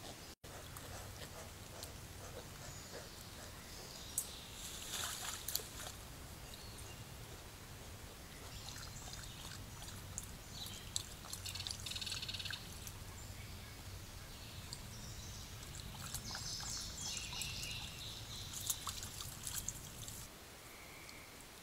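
Coyote wading through a shallow creek: its steps make intermittent splashing and trickling in the water, coming in several spells.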